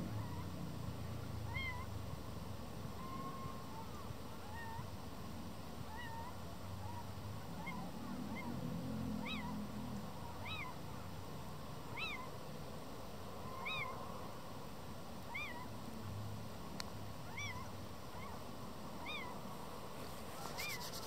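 Little owls (Athene noctua) giving their cat-like mewing courtship calls: short rising-and-falling notes repeated about every second and a half, growing louder from about nine seconds in. Fainter, lower calls from a second little owl answer between them.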